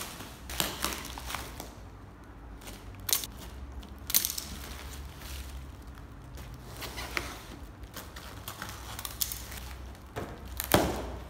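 Packaging being torn open and handled: black plastic wrap crinkling and rustling, and cardboard boxes scraping and knocking. A few sharp knocks stand out, the loudest near the end.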